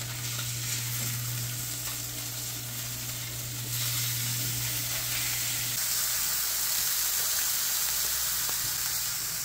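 Largemouth bass fillets sizzling in hot avocado oil in a cast iron pan as they are turned with a utensil. The sizzle gets louder about four seconds in.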